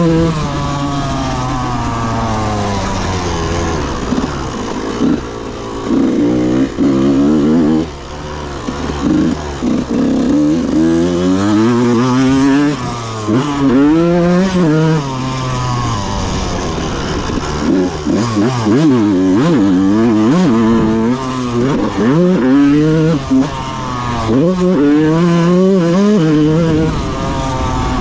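A 2001 Yamaha YZ125's single-cylinder two-stroke engine being ridden hard, revving up and dropping back again and again as the rider works the throttle and gears. Each time the pitch climbs steeply and then falls away.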